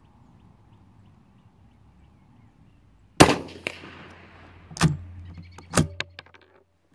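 A single rifle shot from a scoped rifle, heard from the shooter's position: one sharp crack about three seconds in, with a long echo fading away over the next second or so. It is followed by two shorter, sharper clacks about a second apart.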